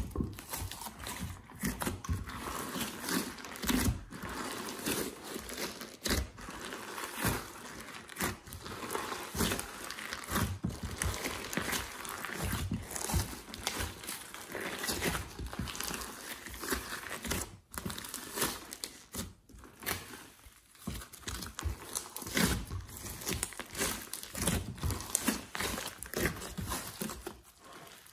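Hands kneading, squeezing and stretching a thick mass of slime with clay mixed in, giving a dense, irregular stream of sticky squishes and crackles.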